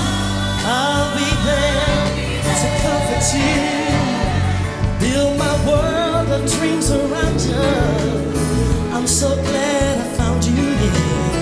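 Live, undubbed music: a woman's lead vocal singing gliding, ornamented phrases of a slow soul ballad over band accompaniment.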